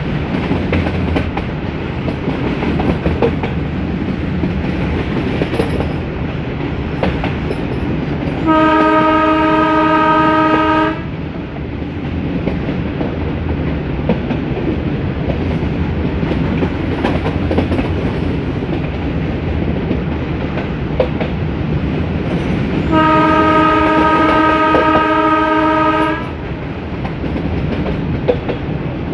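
Horn of a YDM4 metre-gauge diesel locomotive sounding two steady blasts, about two and three seconds long, the first about nine seconds in and the second about fourteen seconds later, over the train's constant running noise and rail clickety-clack.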